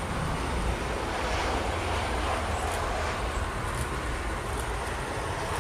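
Boeing 737-900ER airliner's CFM56-7B jet engines heard during the landing flare over the runway: a steady rumble and rush.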